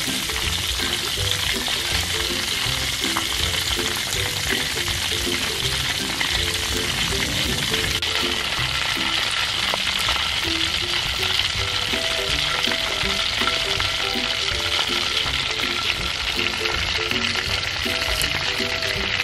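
Breaded chicken drumsticks deep-frying in a pan of hot oil: a dense, steady sizzle.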